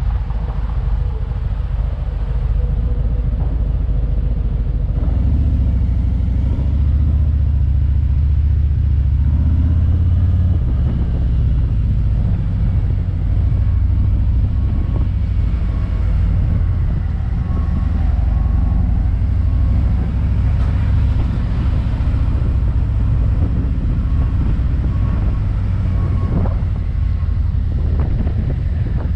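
Touring motorcycle engine running as the bike rides through city streets, a steady low rumble that grows louder about five seconds in as it pulls away.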